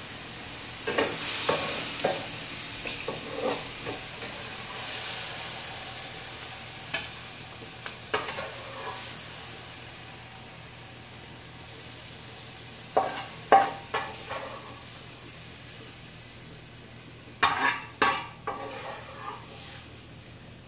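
Food sizzling as it fries in a pan, with a spatula scraping and knocking against the pan in four short bouts of stirring.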